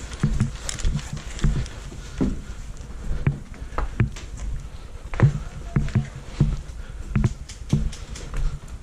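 Footsteps, low thumps about every half second, mixed with scattered sharp clicks.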